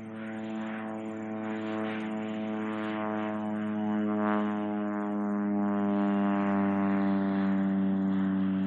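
Crop-dusting plane's engine and propeller humming as it flies low overhead, growing steadily louder through the pass.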